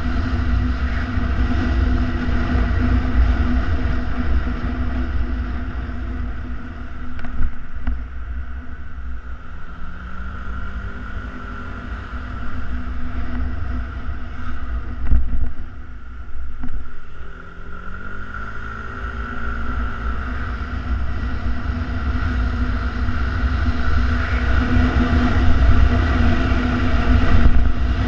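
Yamaha Xenter 150cc scooter's single-cylinder four-stroke engine running at riding speed under heavy wind rush on the helmet-mounted camera's microphone. It eases off in the middle, and its pitch rises twice as it picks up speed again; the noise grows louder toward the end.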